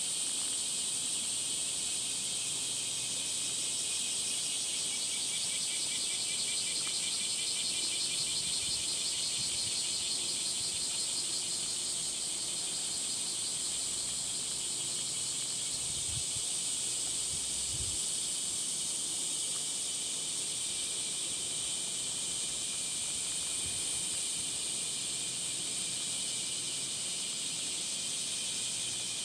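Chorus of cicadas calling in summer heat: a steady, dense high-pitched drone with a fast, rapidly pulsing layer underneath.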